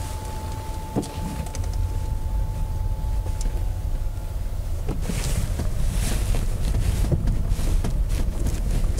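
Steady low road rumble inside the cabin of a moving Honda Vezel Hybrid, with a faint steady tone that stops about a second in and more hiss and light ticks in the second half.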